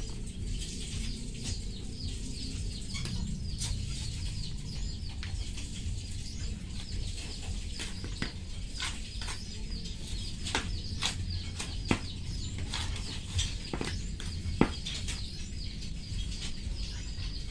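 Small birds chirping continuously in quick, short falling notes, with scattered sharp taps and scrapes from a trowel and hands working soil in a plastic flower pot, two of them louder, near the middle and after it.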